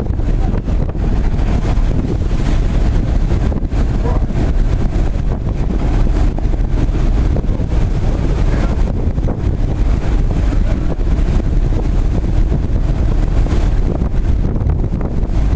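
Wind buffeting the microphone, steady and loud, over the low rumble of a working tugboat's engines and water washing along the hulls.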